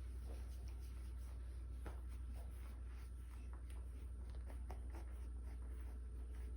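Faint scratching and rustling with a few light ticks, over a steady low hum.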